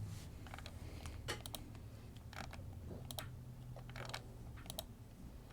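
Faint computer mouse clicks, about one a second and unevenly spaced, over a low steady hum; they are the clicks that run a list randomizer several times over.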